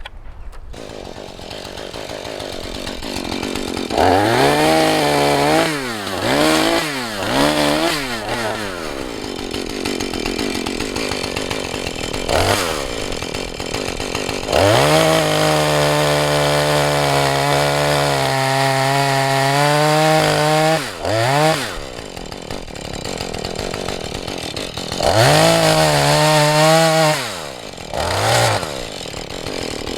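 Husqvarna 435 two-stroke chainsaw idling between short blips of throttle, then held at full speed for about six seconds while cutting wood, its pitch sagging slightly under load before it drops back to idle; more quick revs follow near the end.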